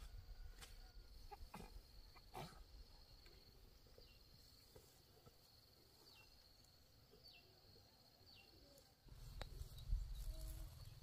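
Faint field ambience: a steady high insect whine with four short, falling bird chirps, about one a second, in the middle. A low rumble comes in near the end.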